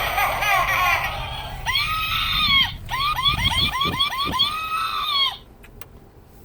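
A loud din of many overlapping shrill voices, then a siren-like wail: one long rise and fall in pitch, a quick run of about six short yelps, and a second long wail that cuts off suddenly about five seconds in.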